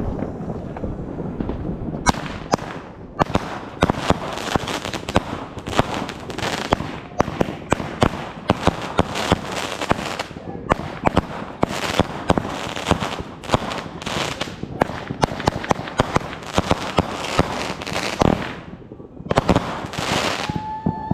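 Fireworks going off in a dense, rapid barrage of bangs and crackles, starting about two seconds in. There is a brief lull near the end before the bangs resume.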